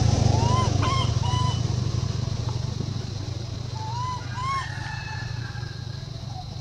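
Short rising-and-falling animal calls in quick groups of two or three, about a second in and again about four seconds in. Under them a low engine rumble fades away.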